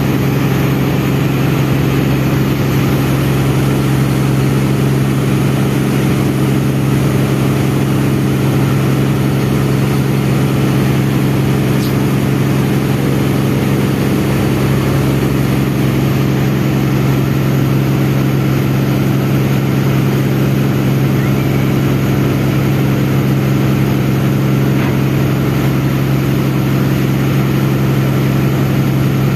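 Steady drone of a riverboat's diesel engine running at cruising speed, with water rushing along the hull.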